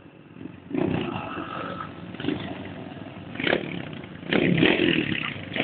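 Motorcycle engine running close by, rough and uneven. It starts up loud about a second in and gets louder in the second half.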